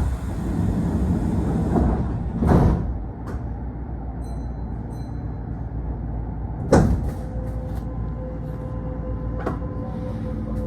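Sliding passenger doors of a Kintetsu train closing with a thump, then two more knocks a few seconds apart over the carriage's steady hum. A steady whine sets in near the end.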